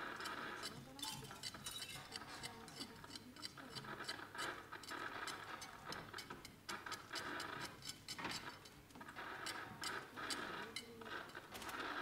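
Irregular small clicks and clinks, several a second, from objects handled by performers, over a faint haze that comes and goes.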